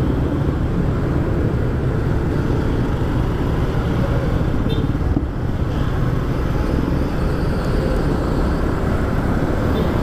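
Honda Airblade scooter riding along at low speed, its engine running under a steady rush of wind noise on the microphone.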